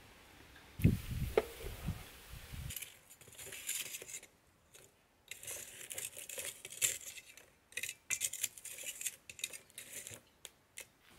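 Metal tongs poking and shifting lumps of charcoal inside a clay shichirin brazier, the charcoal pieces clinking and scraping against each other and the tongs in quick irregular clicks. A low thud and rumble come about a second in, before the clinking starts.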